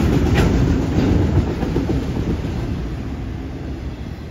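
Freight train of autorack cars rolling past, a steady low rumble of wheels on rail with a few clicks, fading as the last cars move away.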